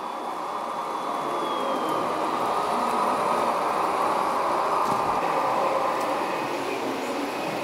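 Steady rushing rumble of model vehicles running on a miniature layout, with a radio-controlled truck and a model train both moving. It swells slightly through the middle.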